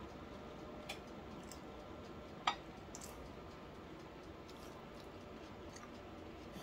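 Quiet kitchen room tone with a few small clicks and taps, like food and utensils being handled on the counter; one sharper click comes about two and a half seconds in.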